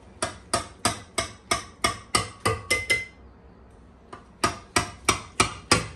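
Knife chopping on a board in quick, even strokes, about three knocks a second, in two runs with a pause of about a second and a half between them.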